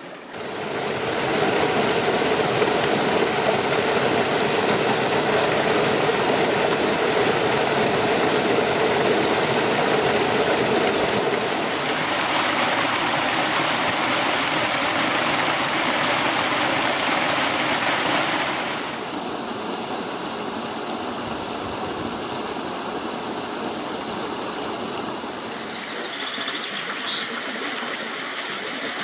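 Stream water rushing over rocks and through foaming white water, a loud steady rush that changes character partway through. It then drops to a quieter, gentler flow about two-thirds of the way in.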